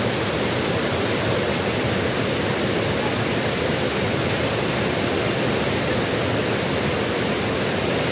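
Waterfall and shallow river cascade: fast water rushing and splashing over rocks, a steady, even rush.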